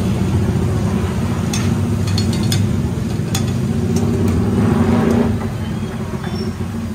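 Metal tongs and utensils clicking sharply against steel pans and plastic tubs, several times between about one and a half and four seconds in, over a steady low background rumble.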